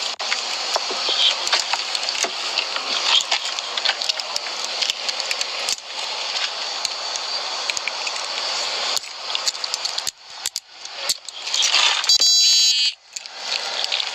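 Close, rustling clothing and jingling, clicking metal, as a man standing facing a car is frisked. A short electronic tone sounds about twelve seconds in.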